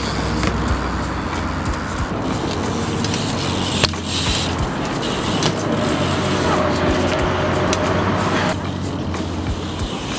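BMX bike tyres rolling on concrete, with a few sharp knocks from landings and hits, the loudest about four seconds in.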